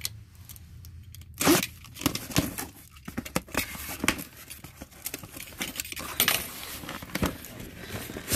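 Snap-off utility knife slitting packing tape on a cardboard box, with the tape tearing and the cardboard scraping and rustling as the box is handled; the loudest scrape comes about a second and a half in.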